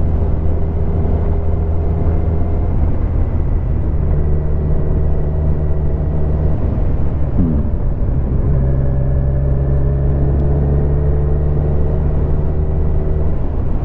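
Kawasaki Z1000 inline-four engine running steadily under way, heard from the rider's helmet. About seven seconds in the engine note breaks briefly and then settles back to a steady run.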